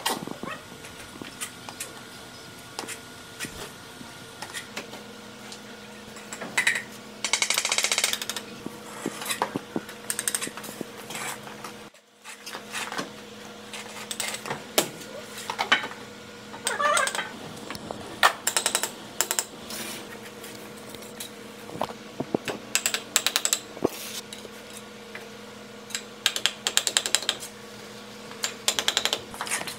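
Hand bricklaying: hollow fired-clay bricks clinking and knocking as they are handled and set in mortar, and a steel trowel scraping and tapping, in irregular bursts of quick clicks. A faint steady hum sits underneath.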